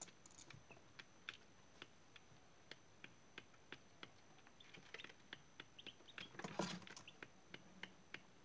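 Young chicks pecking at feed, their beaks tapping on the metal feeder tray and paper bedding in faint, irregular clicks, two or three a second. There is a louder flurry of pecking and scuffling about two-thirds of the way through.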